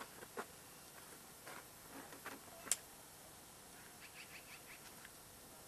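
Quiet outdoor background with a few faint short chirps and ticks, and one brief sharp click about halfway through.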